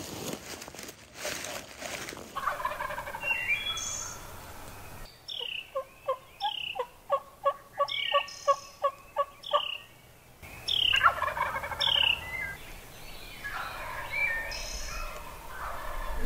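Wild turkey gobblers gobbling from the roost, several rattling gobbles. Between them comes a run of about a dozen short, evenly spaced calls.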